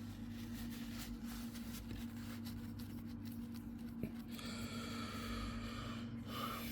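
Faint handling sounds of laptop parts being worked by hand, light rubbing with one small click about four seconds in, over a steady low electrical hum.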